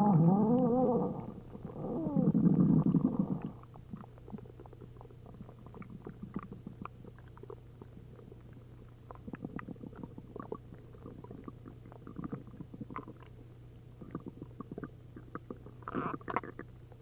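Upset human stomach full of liquid from a liter each of milk and prune juice, growling loudly twice with a wavering, gliding pitch in the first few seconds. After that it makes many small bubbling pops and gurgles as liquid moves through the gut, with a slightly louder cluster near the end.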